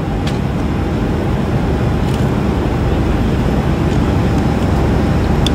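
Steady roar of an airliner cabin in flight: engine and airflow noise heard from a window seat.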